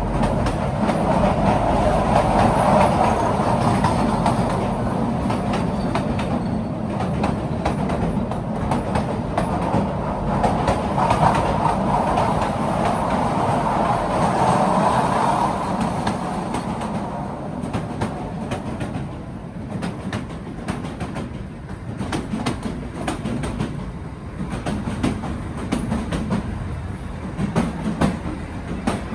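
Narrow-gauge Kalka–Shimla toy train running along the track, a steady rumble of wheels and carriages, louder in the first half, with sharp clicks of the wheels over rail joints coming through more in the second half.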